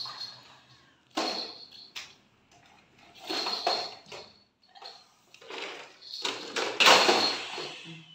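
Plastic toy cars and toys clattering and scraping on a tiled floor in several separate bursts as a baby handles them.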